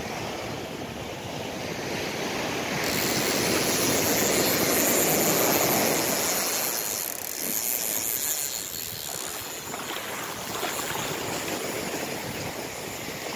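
Sea surf breaking and washing up a sandy beach, swelling louder a few seconds in as a wave runs up.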